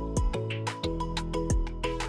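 Background music: held instrumental tones over a regular beat.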